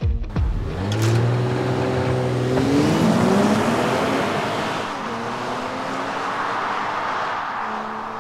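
BMW 540i Touring's 3.0-litre turbocharged straight-six accelerating hard as the car drives away, the engine note rising in pitch, dropping back once about three and a half seconds in as it shifts up, then fading as the car moves off into the distance.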